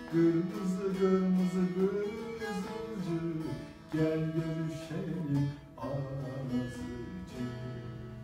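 Bağlama (long-necked Turkish saz) strummed and plucked in a lively instrumental run of pitched notes, with strong fresh strokes near the start, about four seconds in and about six seconds in. These are the closing bars of the folk song (türkü), played without singing.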